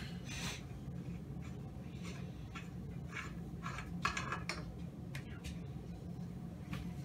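Hands mixing and kneading wet ground duck meat in a glass bowl, a run of short squishing rubs, over a steady low hum.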